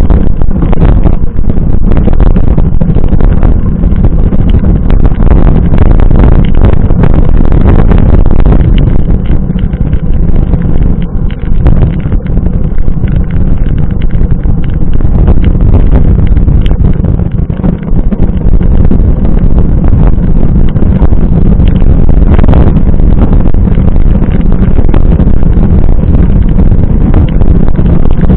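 Wind buffeting the microphone of a camera on a moving mountain bike, a loud constant rumble, with frequent short knocks and rattles as the bike runs over rough ground.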